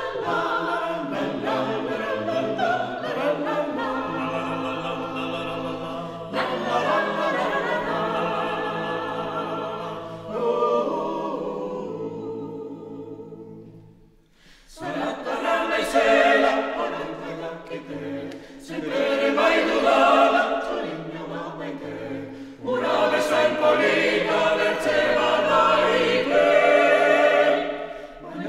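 Small mixed-voice choir singing a cappella in harmony, men's and women's voices together. A phrase dies away around halfway through, with a brief hush before the full choir comes back in loudly.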